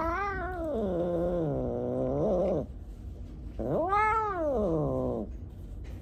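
Domestic cat giving two long, drawn-out yowls while being held and hugged. The first slides down in pitch over about two and a half seconds, and the second comes about a second later, rising and then falling. They are complaining calls at being held.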